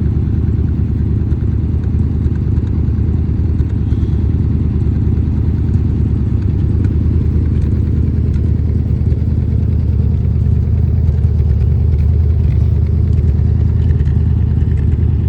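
1978 Chevrolet Corvette's L-82 350 small-block V8 idling steadily, a deep, even exhaust note that holds at the same speed with no revving.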